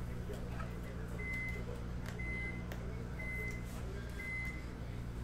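Four short, evenly spaced electronic beeps, one about every second, each a single steady high tone, over a steady low hum, with a few faint clicks.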